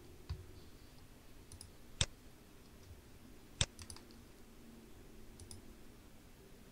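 Computer mouse clicking: two sharp clicks about one and a half seconds apart, with a few fainter clicks around them, over a faint steady hum.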